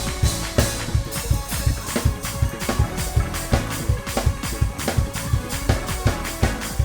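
Drum kit and keyboard playing a fast gospel praise-break groove, with rapid, evenly driven hits and sustained keyboard chords.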